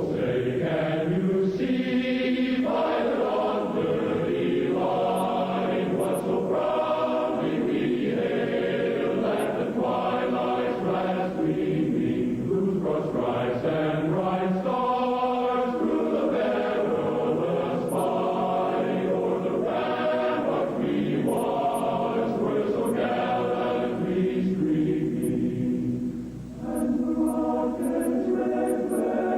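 A choir singing sustained chords, with a brief break about 26 seconds in.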